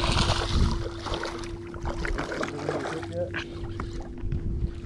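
A hooked trout thrashing and splashing at the water's surface in about the first second, then smaller splashes and knocks over a low wind rumble and a steady faint hum.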